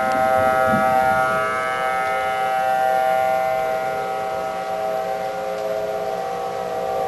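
Several outdoor warning sirens sounding a steady, unbroken tone together, at slightly different pitches, the sound swelling and fading gently.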